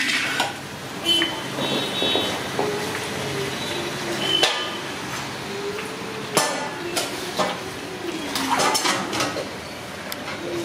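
Slotted steel ladle clinking and knocking against a wide iron kadai and a steel bowl, several separate sharp knocks, as a nest of fried besan sev is lifted out of the frying oil and tipped into the bowl to drain.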